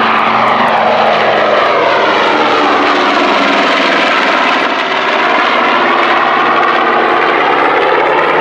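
The twin Wright R-2600 radial engines of a B-25 Mitchell bomber at takeoff power during its takeoff roll, a loud, steady propeller-engine drone. Its tone sweeps down and back up around the middle as the bomber passes.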